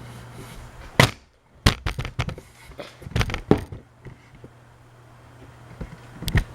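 A steady low hum, then a sharp click about a second in, followed by a run of quick clicks and knocks. Another loud click comes near the end.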